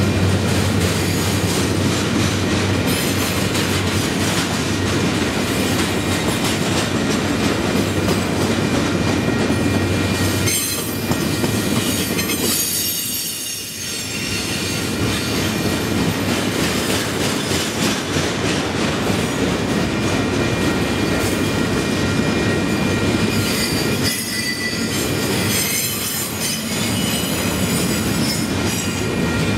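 Rail train's cars loaded with long rails rolling past close by: steady wheel-on-rail noise, with high wheel squeal at times. The noise dips briefly about halfway through.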